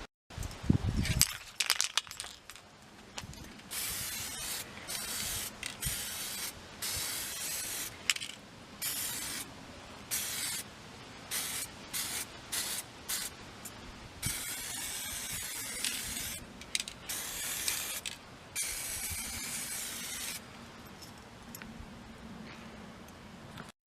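Aerosol spray paint can spraying in repeated short bursts of hiss, each cutting on and off sharply, some under a second and some about two seconds long. A few handling knocks come in the first couple of seconds.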